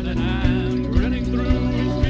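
A live band playing a song: guitars and bass over a steady drum beat, with wavering pitched lines that sound like singing.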